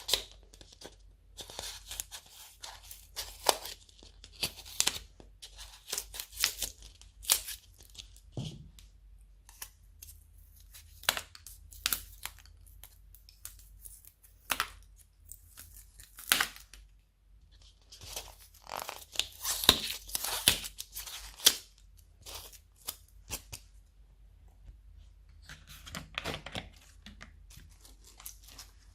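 Slime being squished, pressed and stretched by hand, giving irregular sticky clicks and crackling pops, with a dense run of crackles about two-thirds of the way through.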